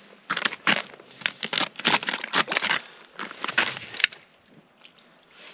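Boots crunching and scuffing on packed snow and ice beside a tip-up hole: a run of irregular crunches that eases off after about three and a half seconds, with one sharp click about four seconds in.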